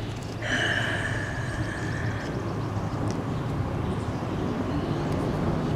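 Steady low rumble of a distant engine, growing slightly louder, with a brief high tone from about half a second in to about two seconds in.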